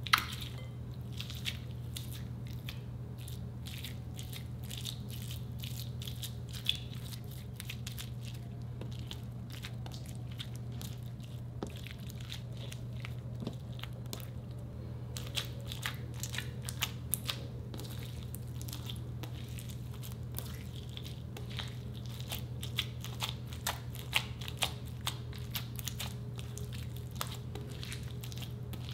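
Clear slime packed with crushed giant Orbeez water beads being pressed and squished by hand, giving wet crackles and pops that come thick and fast in the second half, over a steady low hum.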